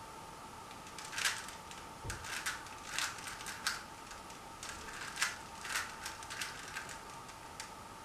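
Plastic 3x3 Rubik's Cube being turned by hand: a string of quick clicks and clacks as its layers snap round, starting about a second in.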